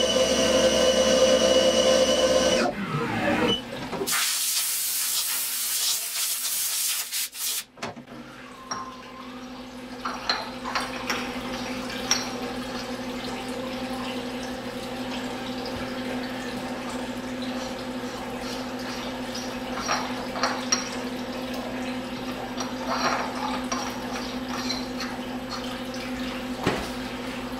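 HAAS TM-1 CNC mill cutting an aluminum ring with an end mill under coolant. The cut ends and the spindle winds down about three seconds in, followed by a few seconds of loud hiss. After that comes a steady machine hum with a few light clicks as the aluminum filler cap is handled on its bung.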